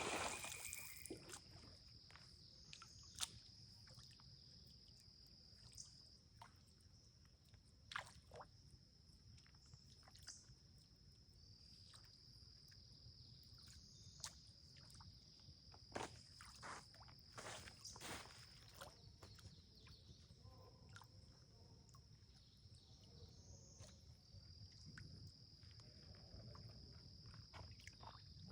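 Quiet outdoors with a faint, steady, high-pitched insect trill that breaks off and starts again a few times, with scattered light clicks and knocks.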